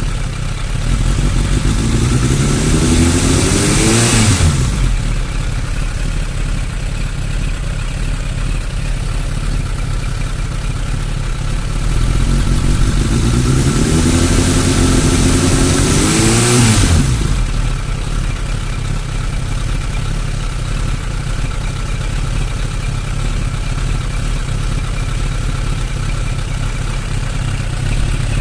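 Suzuki Bandit 600's inline four-cylinder engine idling, revved twice with the pitch climbing over a few seconds and then dropping quickly back to idle. The idle is rough, with fluctuations the owner traces to cylinder 3, cause unknown.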